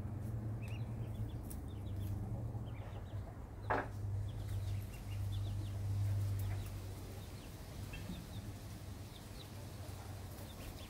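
Young birds peeping, with many short high chirps scattered throughout and one louder call about four seconds in, over a steady low hum.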